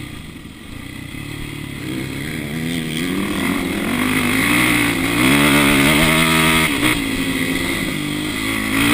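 Dirt bike engine heard from on board while riding, with the revs climbing under throttle, dropping off sharply about seven seconds in, then picking up again near the end. Wind rush runs over the microphone throughout.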